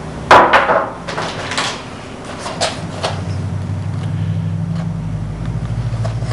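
Handling noises of lock-picking tools and their packaging on a table: a sharp double knock about a third of a second in, then lighter clicks and rustling. A low hum rises in the background near the end.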